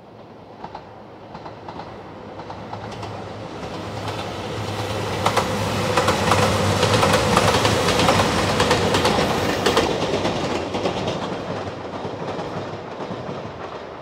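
JR Shikoku 2700 series diesel limited express passing. It grows louder to a peak about halfway through and then fades, with the steady hum of its engines and repeated clicks of the wheels over rail joints.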